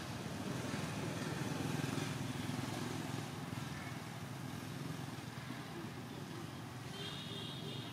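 A motor vehicle engine running past, a low rumble that swells about two seconds in and then eases off. A short high-pitched call sounds near the end.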